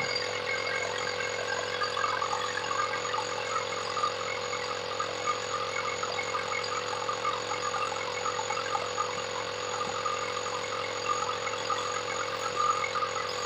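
Portable electric tire inflator running steadily, pumping air into the freshly plugged car tire.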